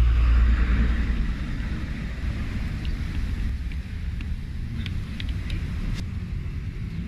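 Low rumble of street traffic, loudest as a vehicle passes close near the start. Later come a few light clicks from a metal spoon against a plastic-wrapped plate as food is cut.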